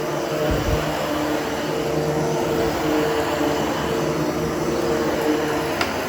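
Hoover HushTone vacuum cleaner running steadily over carpet, a constant motor drone with a steady hum. There is a low bump about half a second in and a short click near the end.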